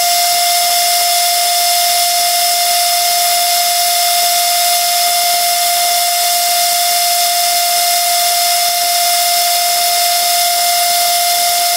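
Metal lathe turning the end journal of a forged crankshaft, the tool taking a steady cut: a constant high-pitched whine over an even hiss.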